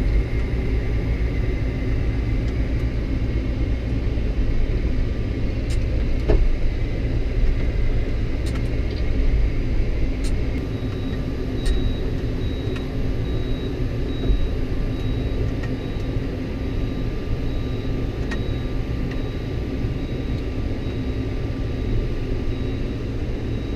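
De-icing truck's engine running with a steady low rumble. Thin steady whines sit above it; one whine gives way to a higher one about ten seconds in, and there are a few faint clicks.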